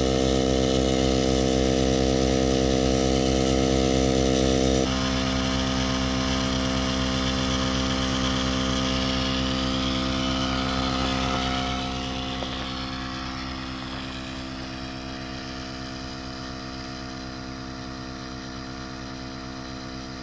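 A motor engine running at a steady speed with a low pulsing hum. Its higher tones drop away abruptly about five seconds in, and the sound fades gradually over the last several seconds.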